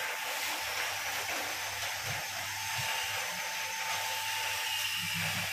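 Plastic-pellet mixer running with a steady low hum and a thin whine, while mixed plastic pellets pour from its discharge chute into a woven sack with a steady hiss.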